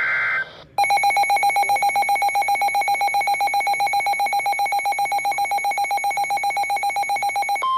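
Emergency alert signal: the tail of a SAME data burst, then a harsh electronic alert tone beeping rapidly, about eight pulses a second, for several seconds. Near the end it switches to a single steady tone, the 1050 Hz NOAA Weather Radio warning alarm.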